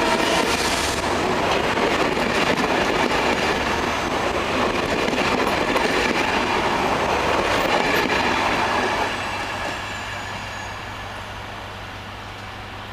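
Departing passenger train rolling past on the rails: a loud, steady rumble of steel wheels on track that drops away about nine seconds in as the train moves off.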